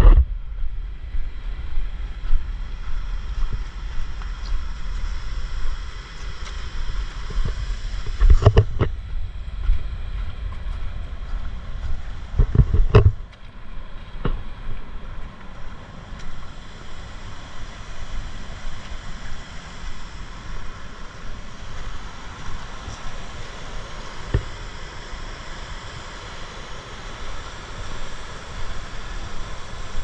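Wind buffeting the microphone, with loud gusts about eight and twelve seconds in, over the steady rush of river rapids and a small waterfall.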